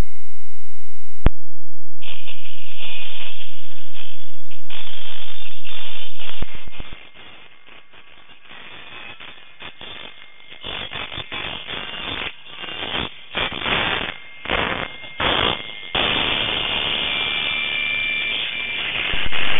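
Shortwave radio noise from an online SDR receiver set to FM mode around 11.98 MHz, with the frequency being tuned. A click about a second in, then harsh hiss that comes and goes in short bursts, turning into a steady hiss near the end.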